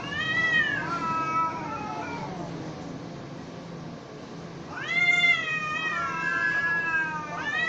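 Two domestic cats in a standoff, yowling: a long drawn-out yowl that rises and then falls in pitch, a second long wavering yowl starting about five seconds in, and a third beginning right at the end. These are the threat yowls cats trade before a fight.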